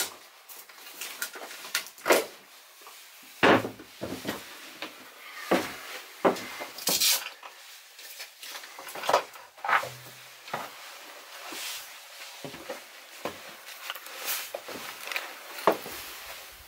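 Irregular knocks, clicks and rustling of hands at work in a wooden boat cabin: a fire extinguisher is unclipped from its wall bracket and wooden cabin fittings are handled.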